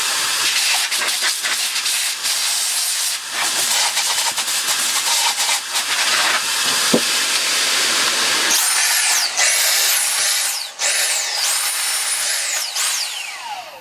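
Compressed-air line blowing dust out of a Dyson V6 cordless vacuum's cyclone unit: a loud, steady hiss. In the second half, high whistling tones rise and fall over it. It stops just before the end with a tone gliding down.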